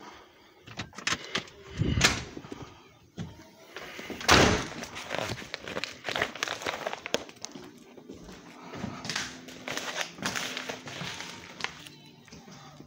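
A house door being opened and shut, with two loud thuds about two seconds apart, then footsteps and the rustle and knock of carried packages.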